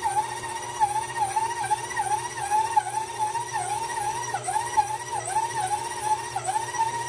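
KitchenAid stand mixer running with its dough hook kneading a ball of bread dough: a steady motor whine that dips in pitch about twice a second.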